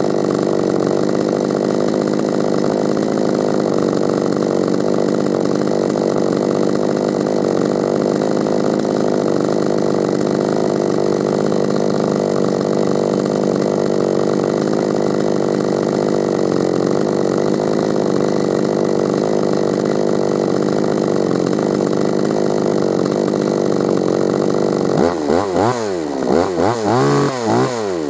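Oregon 45 cc two-stroke chainsaw running steadily, then revved up and down in several quick throttle blips near the end.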